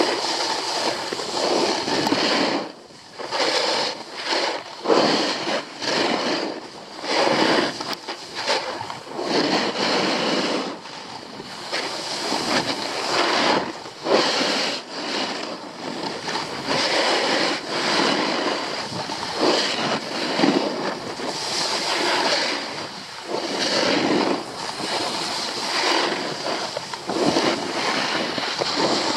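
Skis carving turns down a groomed piste: edges scraping and swishing over packed snow in repeated surges a second or two apart, with wind buffeting the microphone.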